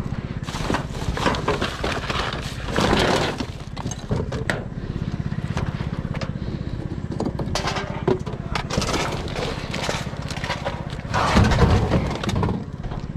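A vehicle engine idling steadily, with bouts of clattering and knocking from junk being handled, loudest about three seconds in and again near the end.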